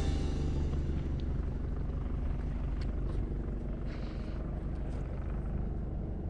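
A sailboat's inboard diesel engine running steadily while the boat motors, a low, even hum.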